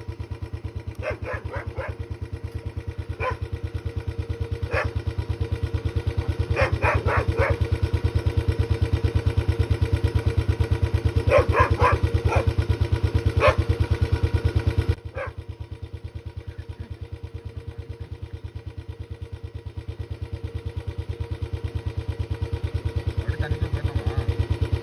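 A motorcycle engine idling with a steady low throb, while dogs bark in short runs of a few barks through the first half. The engine sound drops in level about halfway through.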